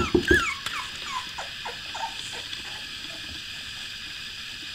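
Newborn puppy whimpering: a run of short squeaks, each falling in pitch, fading out after about two seconds. A few soft thumps come at the very start.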